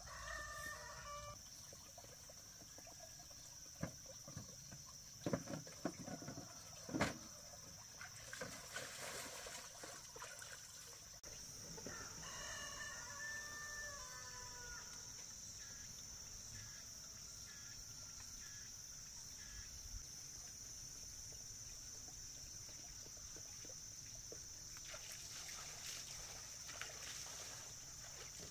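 A rooster crowing, briefly at the very start and again about twelve seconds in with a longer crow that drops in pitch at its end. A few sharp knocks come between about four and seven seconds in, over a steady high-pitched drone.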